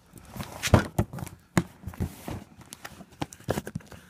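A knife cutting and scraping at a mailed shipping package: irregular scrapes, knocks and packaging rustle, with a few sharper knocks about three quarters of a second and a second and a half in.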